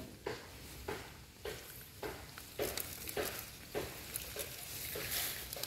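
Repeated splashing and sloshing in shallow muddy water, about two strokes a second, as snakehead fry are scooped out by hand.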